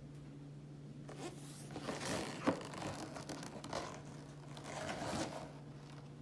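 Toy packaging being torn and scraped open by hand in a series of ripping strokes, with the sharpest rip about two and a half seconds in.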